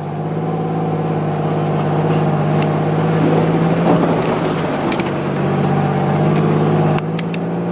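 Off-road vehicle's engine running steadily under load in first gear as it creeps over muddy ground, a steady drone that eases off suddenly about seven seconds in.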